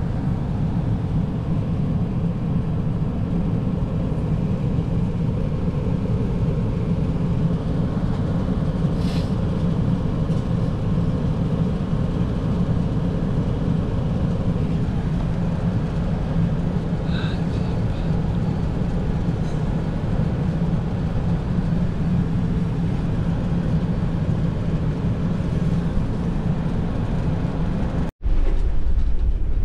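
Steady low cabin noise of an Airbus A380 airliner in cruise flight, the engines and airflow heard from inside the cabin. It breaks off for a moment near the end and comes back with a heavier low end.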